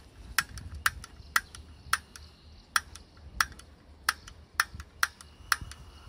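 About a dozen sharp, short clicks, roughly two a second, from the SOTO G-Stove compact gas burner and its canister fitting as they are worked by hand.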